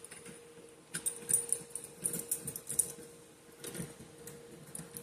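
Small plastic clicks and rattles from a fire alarm pull station being handled, in short clusters about one second, two seconds and nearly four seconds in, over a faint steady hum.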